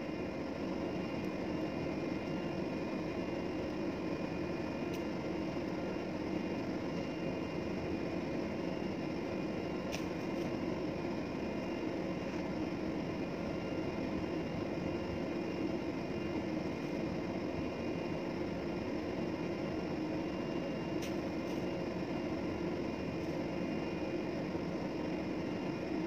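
Steady drone of a ship's machinery running, with a couple of faint clicks about ten seconds in and again near the end.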